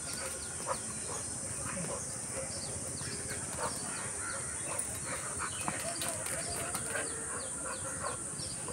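Birds calling in many short, scattered chirps, some sliding downward, over a steady high-pitched hiss.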